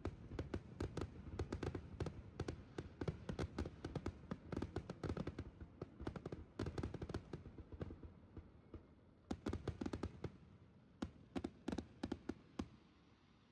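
Aerial fireworks bursting in rapid volleys of sharp cracks and bangs. The cracks thin out for about a second past the middle, come back in a few more tight clusters, and stop shortly before the end.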